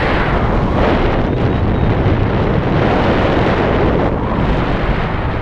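Loud wind buffeting the microphone: airflow rushing past during paraglider flight, a steady rough roar with no pitch, swelling and easing slightly.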